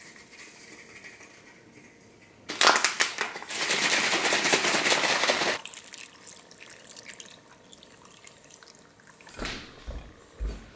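A brief clattering rattle, then milk pouring steadily from a carton onto wheat Chex cereal in a plastic bowl for about two seconds, stopping suddenly. A few soft handling thumps near the end.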